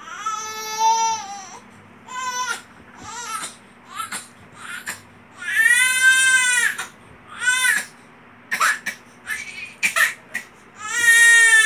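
Infant crying in repeated bouts: a wail of about a second and a half at the start, several short cries, a long loud wail about six seconds in, and another loud wail starting near the end.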